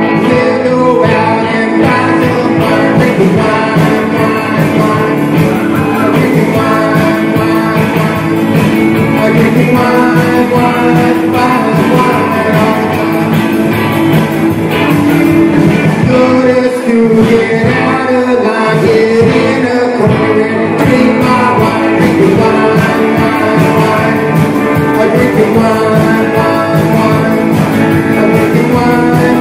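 Rock and roll band playing live, with a singer over guitar and a steady beat.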